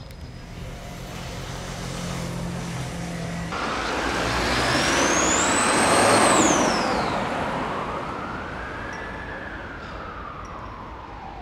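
A motor vehicle passing close by: engine noise builds to a peak about six seconds in and then fades away, with a high whine that rises and then falls in pitch.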